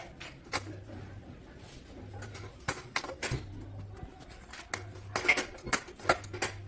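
Metal spanner clicking and clinking against the mounting bolt of a motorcycle fuel tank as the bolt is turned: irregular sharp metallic ticks, coming thicker in the second half.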